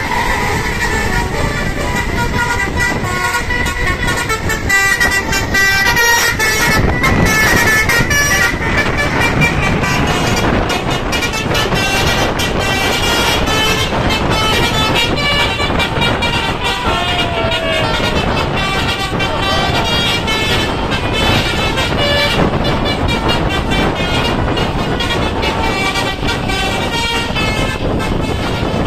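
Basuri telolet bus horn playing a melody of held tones that step quickly from note to note, with vehicle noise underneath.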